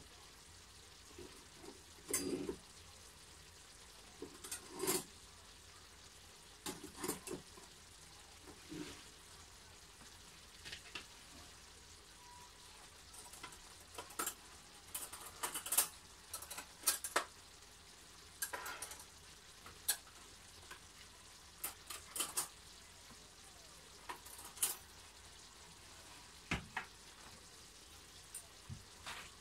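Chicken, vegetables and noodles sizzling in a frying pan, a low steady hiss broken by irregular crackles and pops every second or so.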